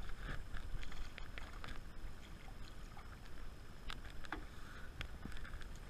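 A hooked fish splashing at the water's surface, then a scatter of small splashes and sharp clicks over a low steady rumble.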